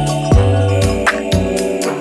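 Background music: a bass line and sustained melody notes over a steady beat of sharp drum strokes, about two a second.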